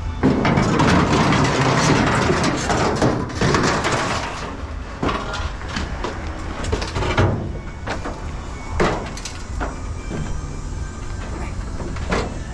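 Scrap metal being handled: loose sheet metal clattering and banging, then a few separate heavy knocks.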